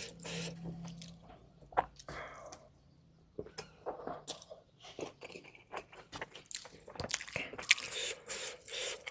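Close-miked eating sounds: a person chewing and biting, with many sharp crunchy clicks, pausing briefly about three seconds in.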